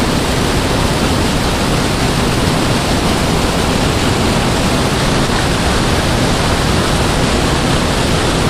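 Loud, steady rushing of white water churning out at the bottom of a spillway.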